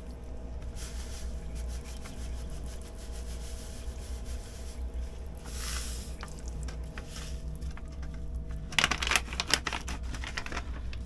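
Powdered water-maker storage compound pouring from a plastic pouch into a bowl of water with a soft hiss, then the pouch crinkling and rustling for a second or two near the end. A steady low hum runs underneath.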